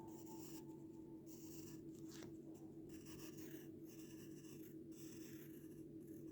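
Faint scratchy strokes of a pen or pencil drawing on paper, a series of short strokes with brief pauses between them, over a steady low hum.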